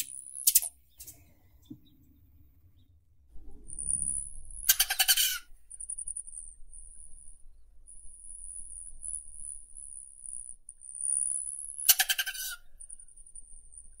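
Rufous hummingbird giving short, rattling chatter calls, three times: near the start, about five seconds in, and about twelve seconds in. Between the calls a steady high-pitched buzz carries on.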